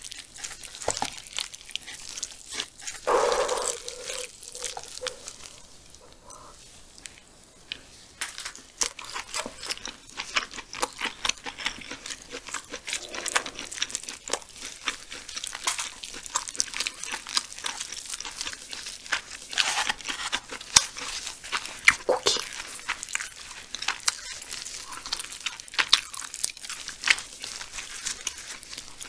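Close-up eating sounds of barbecue ribs: wet chewing and mouth smacks mixed with tender meat being torn off the bone by hand, many short sharp clicks in quick succession. A brief hum of the voice about three seconds in.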